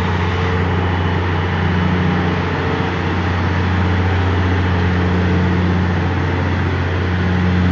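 Steady low hum of a running vehicle engine under an even hiss, unchanging throughout.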